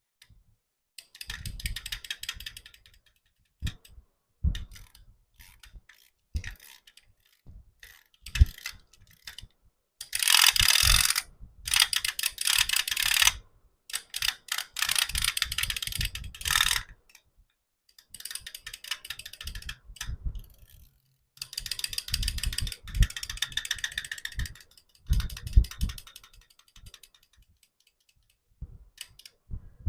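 Toys being handled and worked: bursts of rapid clicking and rattling, each lasting one to three seconds, with short pauses between them.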